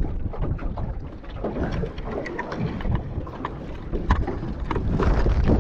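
Wind buffeting the microphone on a small boat on open water, with water lapping at the hull and scattered light knocks and clicks. The wind rumble grows stronger near the end.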